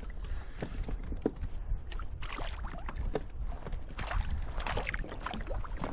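Water lapping and splashing against a sea kayak's hull, with small knocks and clicks and a steady low rumble underneath; the splashing is busiest about two to five seconds in.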